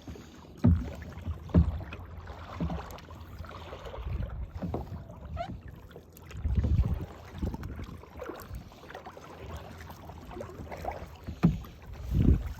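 Kayak on the water recorded from a phone on board: paddling and water sounds, with several dull knocks and bumps against the boat.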